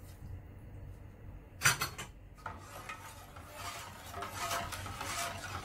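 A sharp knock against a metal pot about a second and a half in, then a metal ladle stirring milk and butter in the pot, scraping and clinking against its sides.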